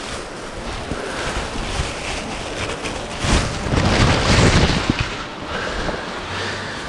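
Wind buffeting the microphone and rustling, with a louder low buffeting stretch a little past the middle and a few sharp clicks.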